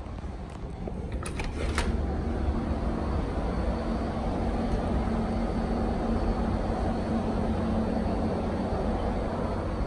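Steady low machine hum and rumble with a low steady tone, building over the first second or two and then holding even, with a few light clicks early on.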